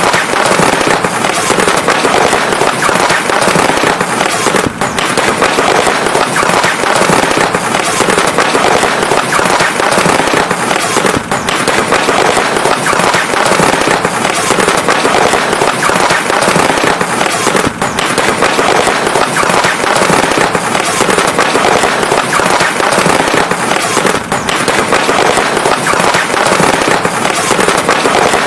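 Fireworks crackling in a dense, unbroken barrage at a steady loudness, with a brief dip about every six and a half seconds.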